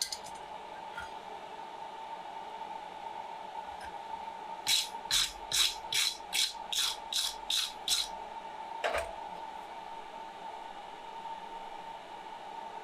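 Forge blower running with a steady hum. From about five seconds in there is a run of about eight quick scraping strokes, roughly two and a half a second, then a single stroke about a second later.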